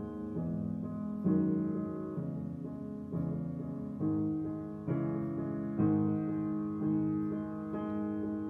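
Solo upright Steinway piano played with chords struck about once a second, each ringing and fading before the next.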